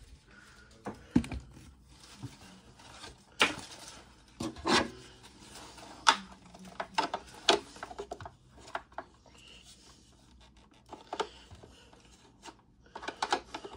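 Hard plastic parts of a monitor riser being handled and fitted together: scattered knocks and clicks with some rubbing and scraping, and a quick run of clicks near the end.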